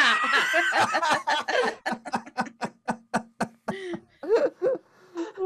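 People laughing at a punchline. First comes a burst of overlapping laughter, then short rhythmic ha-ha pulses at about four a second, and near the end a voice slides down in pitch.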